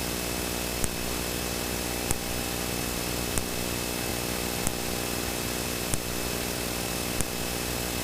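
Cessna Citation V cockpit during a climb in very strong rain: a steady hiss of jet engines, airflow and rain with a low hum, and a short sharp tick repeating evenly about every second and a quarter.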